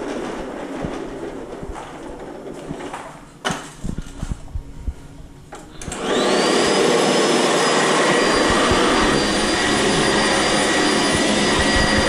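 Sanitaire SC679J commercial upright vacuum: a fading rumble and a few knocks in the first half. About halfway through the motor switches on, its whine climbing quickly to speed and then running steadily and loud.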